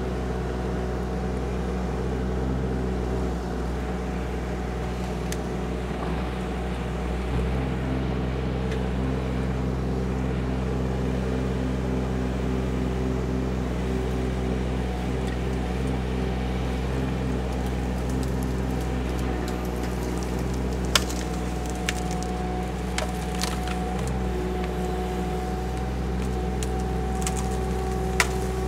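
KYMRON ZX22D mini excavator's diesel engine running steadily under work. A steady higher-pitched whine comes in about two-thirds of the way through, and a few sharp cracks sound in the last ten seconds as the machine works at saplings.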